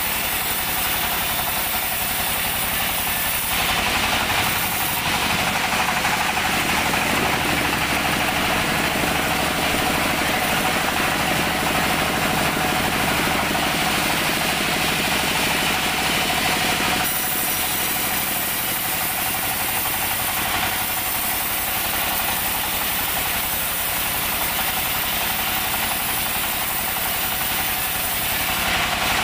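Vertical band sawmill running steadily. From about 3.5 s to 17 s the blade cuts through a teak log, adding a louder, higher rasp over the running sound. After that the machine runs on without cutting.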